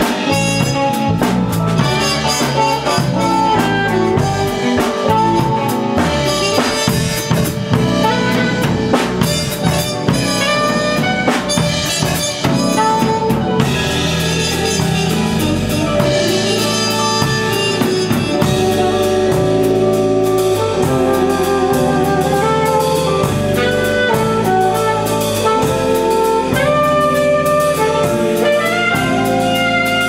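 Band music: a drum kit keeping a steady beat under sustained melody notes, with saxophone among the instruments.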